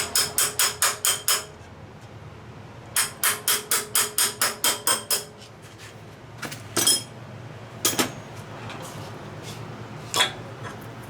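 Hand-tool work on metal: two quick runs of sharp, ringing metallic ticks at about six a second, then three separate clanks, over the steady hum of a shop fan.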